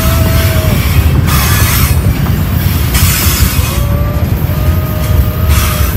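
Freight train rolling past, its cars rumbling steadily over the rails, with thin high whines from the wheels coming and going.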